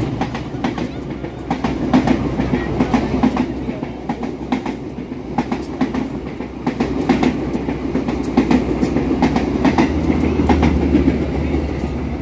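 Lodaya passenger train running straight through the station without stopping. Its carriage wheels clack over the rail joints and points in a long irregular run, over a steady low rumble.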